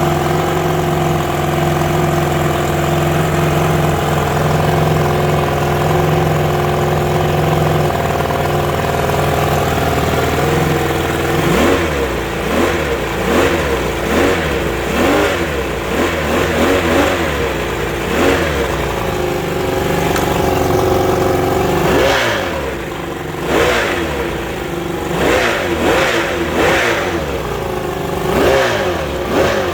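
1962 Mercury 700 70 hp six-cylinder two-stroke outboard motor on its first run after a rewire and lower-unit rebuild. It idles steadily for about eleven seconds, then is revved up and let back down again and again in short blips.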